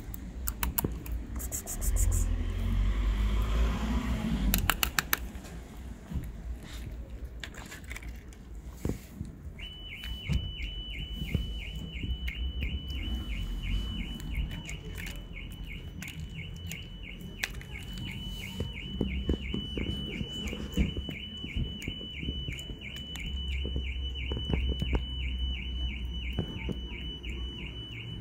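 A kitten eating wet cat food, with knocks and rustles from the foil tray being handled in the first few seconds. From about a third of the way in, a steady high-pitched electronic beeping starts, several beeps a second, and keeps going over the eating.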